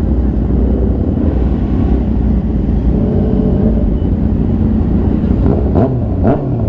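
Motorcycle engine running on the road, a steady low rumble, with two quick rising revs a little before the end.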